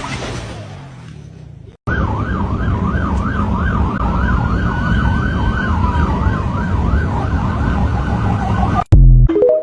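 A siren wailing rapidly up and down, about three swings a second, over a loud low rumble. It starts about two seconds in, cuts off suddenly near the end, and a loud thump follows.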